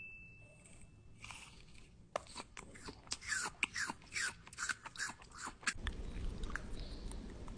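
A baby chewing and smacking on fruit: a quick run of wet clicks and squelchy mouth sounds starting about two seconds in, giving way to a low rumble near the end.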